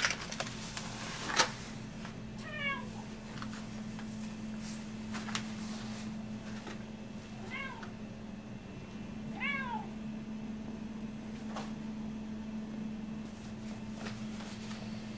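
Domestic cat meowing three times, each call short and rising then falling in pitch, over a steady low hum.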